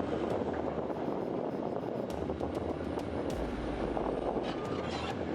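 Heavy earthmoving machine's diesel engine running steadily under work, with a backup alarm starting to beep near the end.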